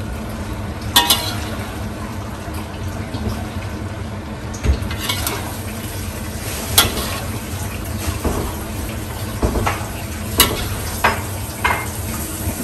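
Noodles and pineapple stir-frying in a metal wok: a steady sizzle, with a metal spatula scraping and clinking against the wok several times.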